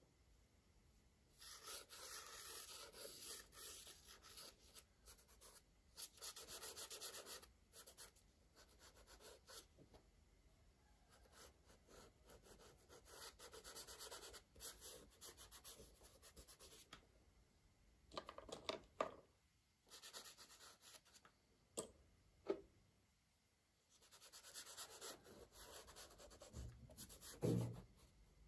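Crayon rubbing and scratching across paper in several bouts of strokes a few seconds long, with a few short knocks in the second half.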